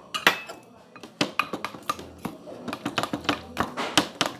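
A utensil stirring slime in a pot, with quick irregular clicks and scrapes against the container as the glue and boric acid activator are mixed.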